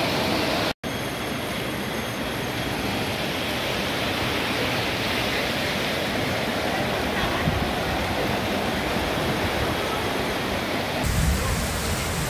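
Floodwater rushing and churning in a steady wash of noise, cutting out for an instant about a second in. Near the end it changes to heavy rain pouring onto a flooded street, with a deeper rumble.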